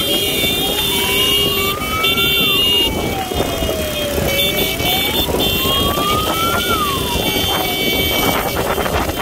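Emergency wail siren on a motorcycle ambulance, sweeping slowly up and down in pitch about twice, each rise and fall taking some four seconds. Motorcycle engine and traffic noise run underneath.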